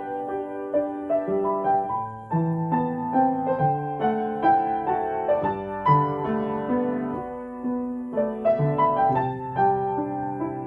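Solo piano playing a slow, gentle new-age piece: a flowing melody over sustained bass notes.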